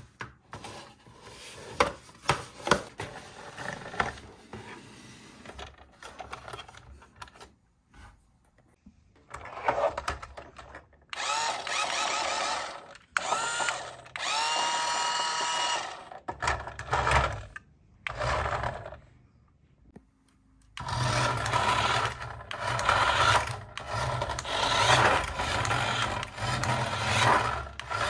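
Clicks and cardboard rustle as a toy is handled out of its box, then the small electric motor of a remote-control toy police cruiser whirring in short bursts, rising in pitch at one point. From about two-thirds of the way in it runs steadily as the car drives across a tabletop.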